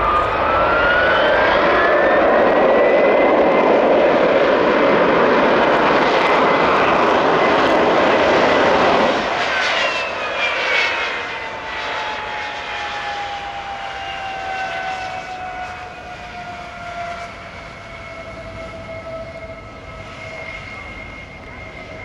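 Vickers VC10's four rear-mounted Rolls-Royce Conway jet engines at high power as the aircraft rolls along the runway: a loud jet roar with a whine that climbs in pitch over the first few seconds. About nine seconds in the roar drops, and the whine falls in pitch and fades as the aircraft moves away.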